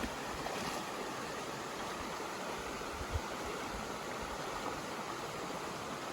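Rain falling steadily, an even rushing hiss with a few faint dull taps.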